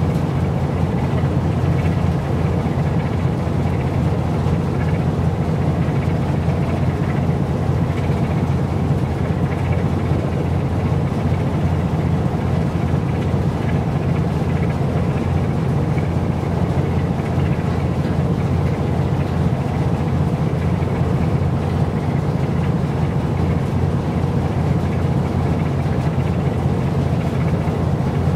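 A boat engine running at a steady low drone, with no change in speed or pitch.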